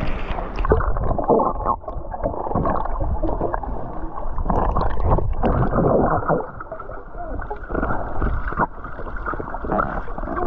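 Muffled, irregular splashing and gurgling of water around the camera, heard dull and cut off in the highs as through a waterproof camera housing.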